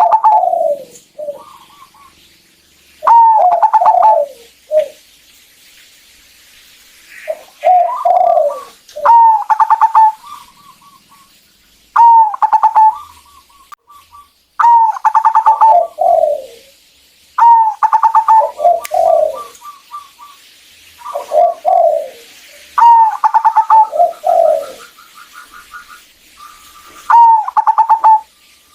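Zebra dove (perkutut) cooing: about ten loud phrases of quick stuttering notes, each ending in lower falling coos, repeated every two to three seconds. A faint rapid run of short higher notes sounds in some of the gaps.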